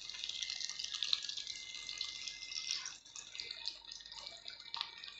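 Bread-crumbed chicken patties deep-frying in hot oil in a kadai, just turned over: a steady sizzle with many small crackles and pops.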